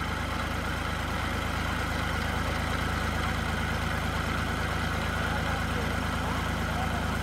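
Diesel engines of two Eicher tractors, a 650 and a 333, running steadily with an even low hum.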